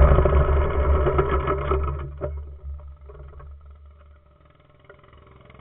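Mini bike's small engine running, then winding down over two or three seconds and dying away as the bike rolls to a stop, leaving only a few faint knocks.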